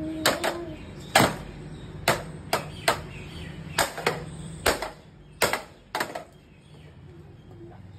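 A hammer repeatedly striking a toy cat coin bank on a stone floor to smash it open: about ten sharp knocks at uneven intervals, stopping about six seconds in.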